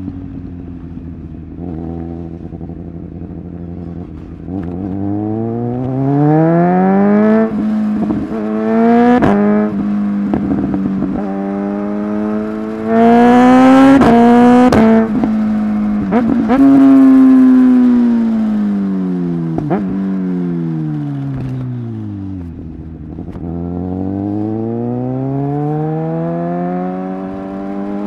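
Suzuki GSX-S1000 inline-four engine accelerating hard through the gears under quickshifter upshifts, with a run of sharp exhaust pops in the middle. The revs then fall away and climb again near the end.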